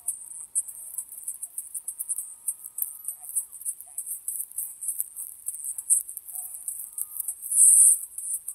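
High-pitched insect chirping and buzzing in quick, irregular pulses, swelling briefly louder near the end, with a faint thin tone underneath.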